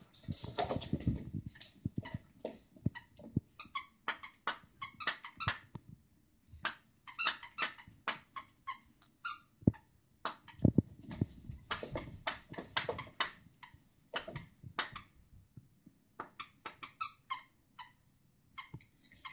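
A dog chewing a plush squeaky bone toy, the squeaker going off in quick runs of short high squeaks with brief pauses between. A few dull thumps at the start.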